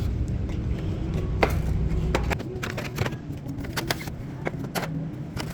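Irregular sharp clicks and knocks from drink cases and a shopping cart being handled, over a low rumble that drops away a little over two seconds in.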